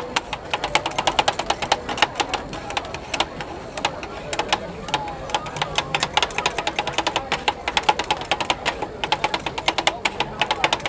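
Rapid, irregular sharp clicking and clacking, several strikes a second, over faint background chatter.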